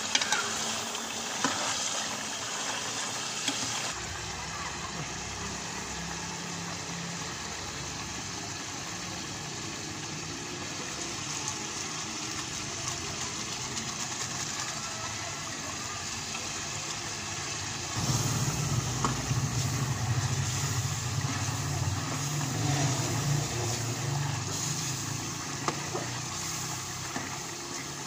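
Chicken curry simmering and sizzling in a metal pot over a wood fire, with a metal ladle clinking and scraping against the pot now and then. A steady low rumble comes in about four seconds in and grows louder about eighteen seconds in.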